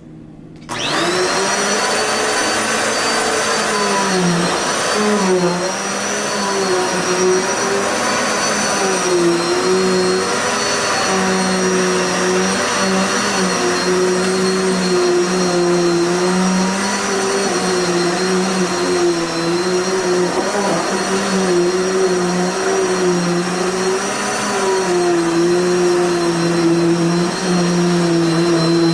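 Dirt Devil vacuum cleaner switched on at its high power setting under a second in, its motor quickly spinning up to a loud steady whine whose pitch wavers up and down as it runs.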